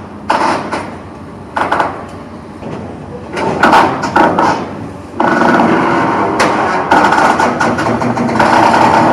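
Excavator-mounted Indeco ISS 45/90 hydraulic steel shear cutting into a steel bridge truss: short bursts of metal clanking and creaking in the first half, then from about five seconds in a steady, loud, mechanical sound as the excavator works the shear under load.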